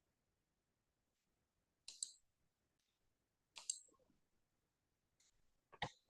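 Three sharp computer mouse clicks, each a quick double click, about two seconds apart over near silence.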